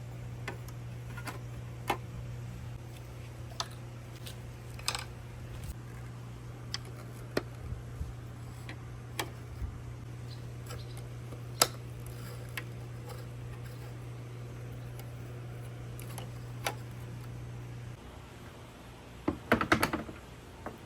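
Balls on a water marble run course clicking against the metal and wooden track in single, irregular knocks, over a steady low hum that stops about eighteen seconds in. A quick flurry of clicks follows near the end.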